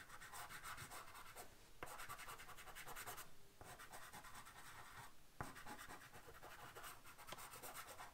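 Faint, quick back-and-forth scratching of a chalk pastel stick on paper, pausing briefly twice.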